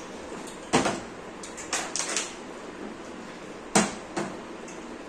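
A bottle being flipped and landing with sharp knocks on a hard surface: a loud knock about three-quarters of a second in, a few lighter clatters around two seconds, and another loud knock near four seconds with a smaller one just after.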